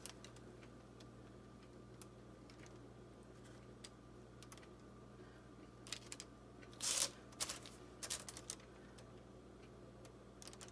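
Quiet handling noise from piping choux pastry: a few faint clicks and short rustles from the squeezed pastry bag and the parchment paper, the loudest rustle about seven seconds in. A steady low hum runs underneath.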